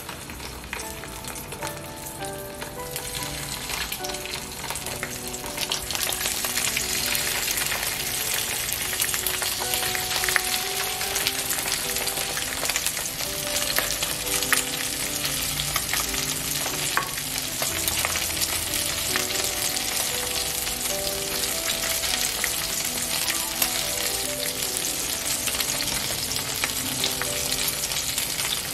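Barracuda fillets sizzling as they pan-fry skin side down in hot olive oil. The sizzle grows louder about six seconds in.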